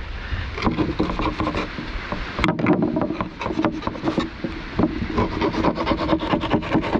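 A knife scraping and cutting at a freshly caught fish, irregular rasping strokes in quick succession.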